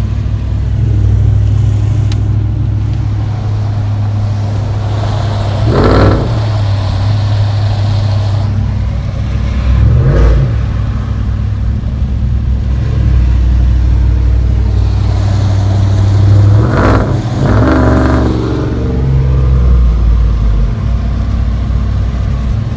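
Dodge Ram 1500 pickup's engine and exhaust heard from inside the cab with the windows up while driving: a steady low drone, with brief surges in pitch as it accelerates about six and ten seconds in, and twice more around seventeen seconds.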